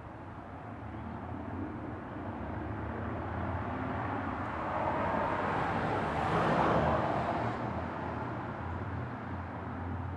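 A car passing by: a rushing sound that builds to its loudest about six seconds in, then fades away.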